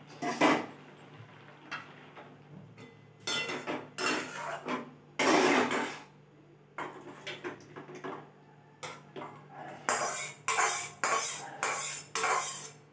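Spatula scraping and knocking against a metal kadai while cooked potato and brinjal curry is emptied into a steel bowl: irregular clinks and short scrapes, busiest near the end.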